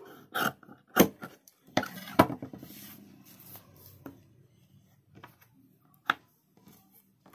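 Fabric shears snipping through cloth in a few short cuts, then two sharp knocks about one and two seconds in, followed by faint handling of the cloth and one more click near the end.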